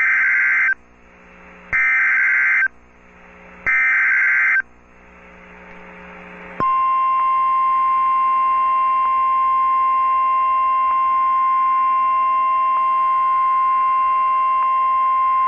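Emergency Alert System SAME header: three buzzy digital data bursts of about a second each, two seconds apart. After a short gap comes the steady single-pitch NOAA Weather Radio 1050 Hz attention tone, held for about nine seconds. Together they signal the start of an official weather warning broadcast.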